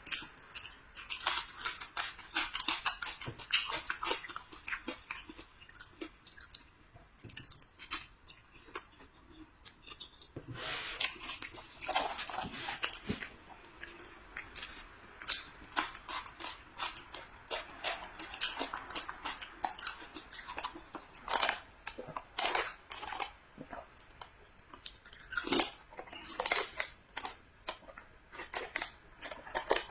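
Close-miked eating: chewing and biting into filled buns and pastries, with irregular wet mouth clicks and soft crunches throughout.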